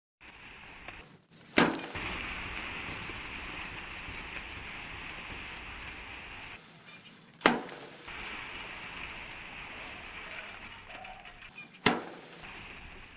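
Three sharp knocks, about six and four seconds apart, over a steady outdoor hiss.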